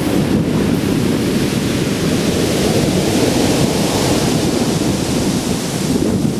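Strong wind buffeting the microphone in a steady, heavy rumble, with sea surf on the shore beneath it.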